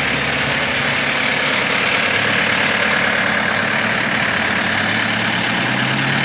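Engine of a hydraulic cable puller-tensioner for high-voltage line stringing, running steadily with a strong hiss over the engine note.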